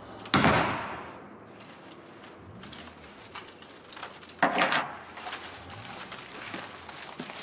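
Two sharp bangs about four seconds apart, each dying away over half a second, with faint footsteps and rustling between. The first fits the front door being shut.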